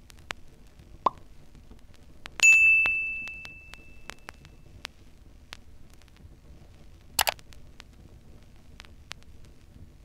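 Edited-in sound effects: a short pop about a second in, then a bright bell-like ding about two and a half seconds in that rings out and fades over a couple of seconds, and a sharp click about seven seconds in, over faint scattered ticks and low hum.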